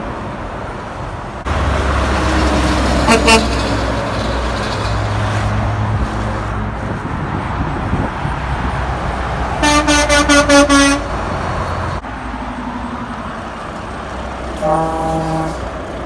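Semi-truck horns honking over the steady rumble of passing diesel trucks and road traffic: a brief toot about three seconds in, a quick run of about six short blasts near the middle, and one short, lower-pitched blast near the end.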